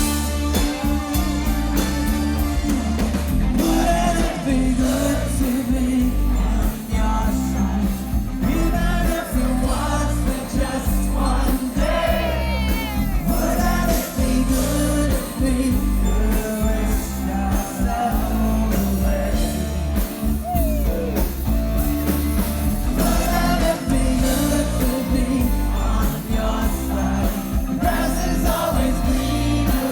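Live pop-rock band playing with a lead singer: heavy bass and drums under the vocal, loud throughout.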